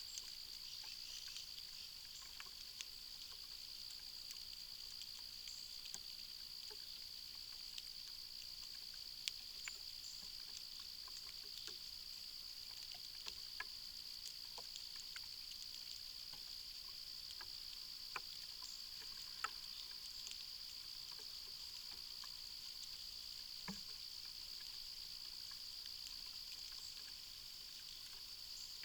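Steady insect chorus, one unbroken high-pitched trill, with a few faint, scattered clicks.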